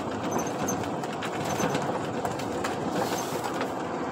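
Truck cab interior on the move: steady engine and road rumble with scattered rattling clicks.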